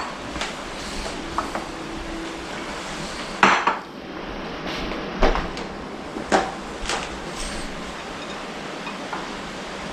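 Ceramic plates, bowls and utensils knocking and clinking on a kitchen counter as food is plated: a handful of separate sharp clinks, the loudest about three and a half seconds in.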